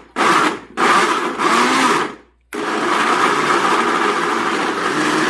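Mondial Premium L51 800 W blender running on carrot cake batter: a couple of short pulsed bursts, a brief stop, then it runs continuously from about halfway through.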